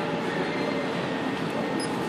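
Steady din of running industrial machinery: an even rushing noise with faint steady whining tones through it.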